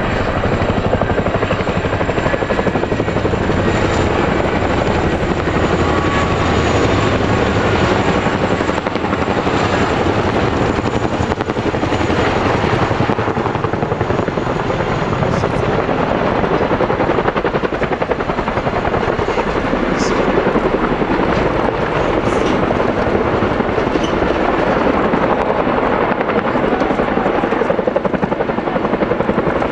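Two CH-47 Chinook tandem-rotor helicopters flying low, giving a steady heavy rotor and turbine noise.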